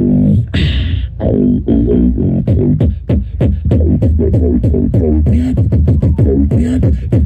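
Beatboxing: a fast, dense run of mouth clicks and hissing snare-like hits over a held low bass tone that bends in pitch.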